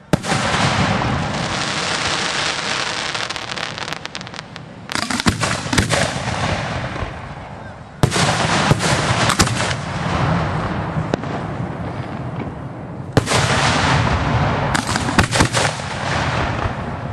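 Aerial fireworks shells bursting overhead: five loud sharp bangs a few seconds apart, each followed by several seconds of dense noise with scattered smaller pops.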